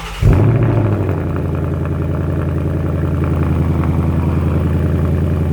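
2019 Ford Mustang Bullitt's 5.0-litre V8 cold start: the starter cranks briefly, the engine catches with a loud flare about a quarter second in, then settles within a second into a steady fast idle through the exhaust.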